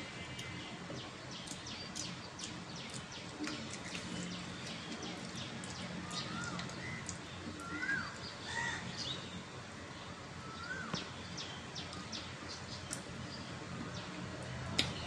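Small birds chirping now and then over a steady background hiss, with scattered small clicks and taps and a sharper click near the end.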